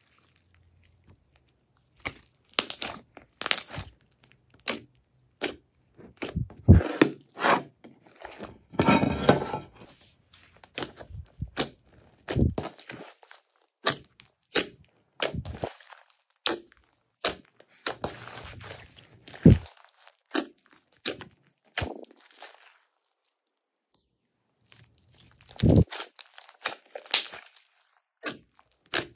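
Slime being squished, stretched and folded by hand, giving irregular sticky crackles, pops and tearing sounds, with a brief pause about three quarters of the way through.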